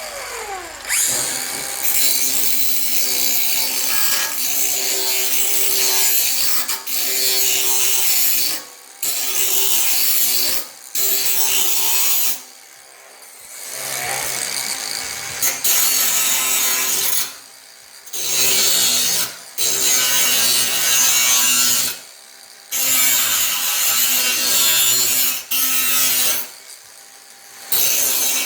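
Electric grinder fitted with a wire wheel brushing rust and scale off a piece of steel, run in repeated spells of a few seconds with short breaks between, its motor's steady hum under the harsh scrubbing noise.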